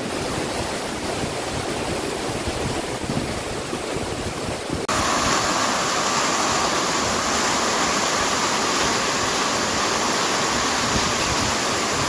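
Waterfall rushing and splashing onto rocks, a steady roar of falling water. About five seconds in it turns suddenly louder and brighter, heard from right beside the falling water.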